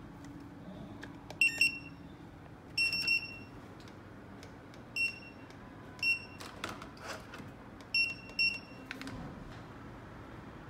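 Handheld 2D barcode scanner giving its short, high good-read beep about seven times, some in quick pairs, each beep marking a successfully decoded QR code.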